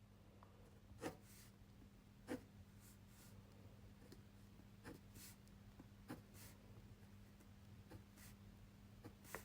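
Fineliner pen drawing on paper: faint scratching with a soft tap of the nib every second or two, over a steady low hum.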